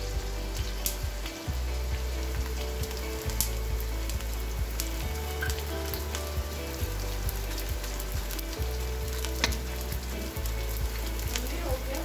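Edible gum (gond) sizzling as it fries in warm ghee in a metal kadhai. A metal spoon stirs it and clicks sharply against the pan a few times.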